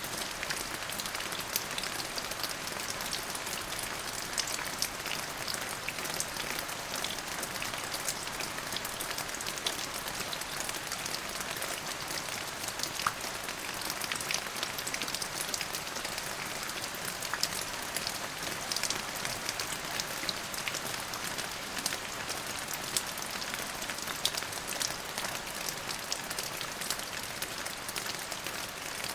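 Steady rain falling, an even hiss with many individual drops ticking sharply on a hard surface.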